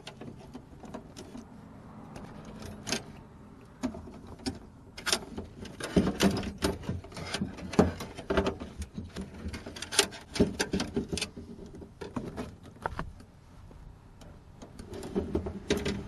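Irregular metallic clicks, knocks and rattles of hand work on the door lock linkage and actuator parts inside a car door, coming thickest in the middle.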